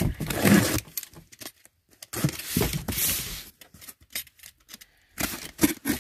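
Box cutter slitting the packing tape on a cardboard box in three short scratchy stretches, with the box shifted on the table between them.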